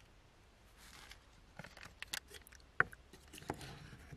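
Wooden spoon stirring chunks of avocado and tomato in sauce inside a small metal pot: soft wet mixing with a few sharp knocks and scrapes of the spoon against the pot, the loudest nearly three seconds in.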